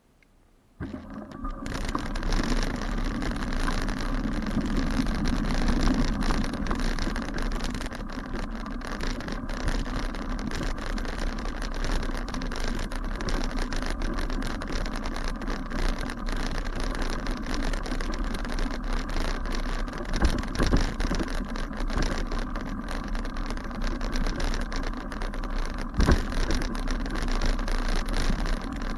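Bicycle riding over a rough grassy path, heard through an action camera: wind buffeting the microphone with tyre rumble and scattered knocks and rattles, starting suddenly about a second in.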